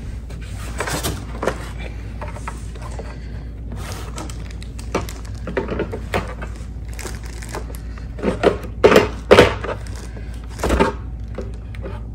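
Monitor stand arm knocking and clicking against the back of the monitor as it is fitted into its mount, in scattered short knocks with a run of louder ones about eight to eleven seconds in.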